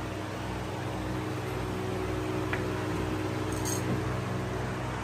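Steady hum and hiss of a running electric desk fan, with a faint tick about halfway through and a brief rustle a little later.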